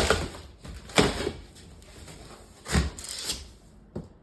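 Handling noises: about five sharp knocks with rubbing and scraping between them, like objects or furniture being moved and set down.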